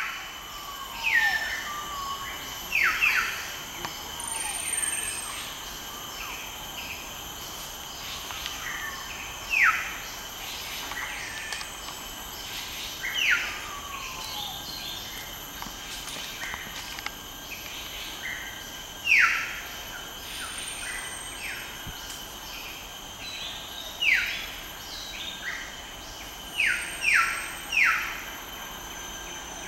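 A bird calling with loud, short notes that slide down in pitch, now singly, now two or three in quick succession, over a steady high-pitched drone of insects.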